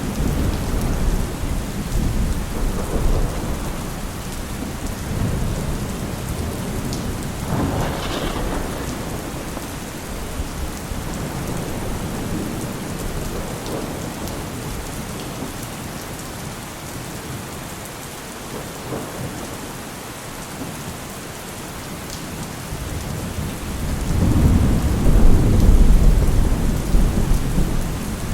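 Heavy rain falling steadily, with thunder rolling through it. A sharper thunderclap comes about 8 seconds in, the thunder eases for a while, then a loud deep rumble swells up near the end.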